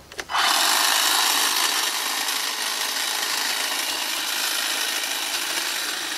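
Greenworks electric pole hedge trimmer starting abruptly about a quarter second in and then running steadily, its blades cutting through weeds and brush.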